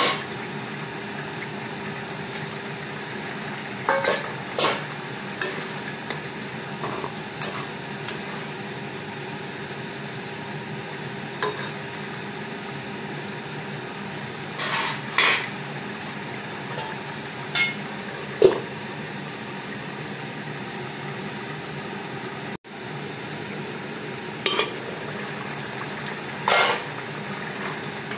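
Metal spoon knocking and scraping against a steel kadai as fried prawns are added to simmering curry and stirred, in scattered clusters of clinks and scrapes over a steady background hum.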